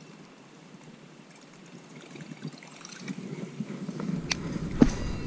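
Faint outdoor hiss, then from about three seconds in a rising rumble of wind and handling noise on a body-worn camera's microphone as the angler moves with the rod, with two sharp clicks near the end.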